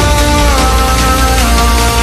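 Background music: a loud track with a heavy, steady bass and long held melody notes that step between pitches.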